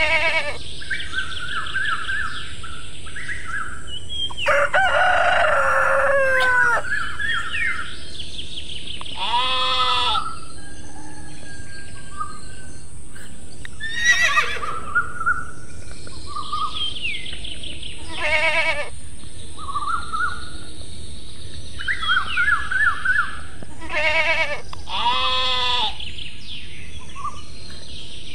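Farmyard animal sounds laid over the picture: a rooster crowing, hens clucking, and several quavering bleats a few seconds apart, with small birds chirping throughout.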